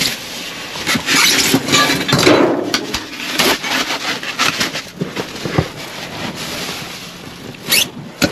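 Plastic bags and bubble wrap rustling and crinkling as a hand rummages through trash in a dumpster, with short crackles and knocks, busiest in the first half.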